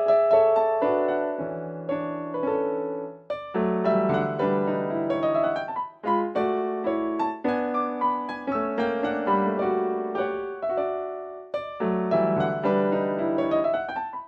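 Background piano music: a gentle piece of flowing phrases, each note struck and left to fade, with two short breaks between phrases.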